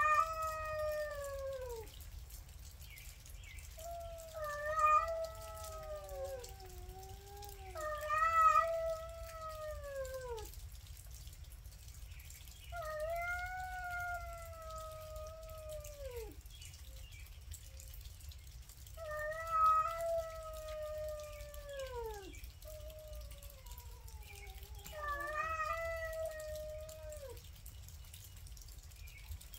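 Two cats in a standoff, yowling at each other: a series of long, wavering caterwauls of two to three seconds each, trailing down in pitch at the end, one after another with short pauses and at times overlapping. This is the threatening yowl of a territorial face-off.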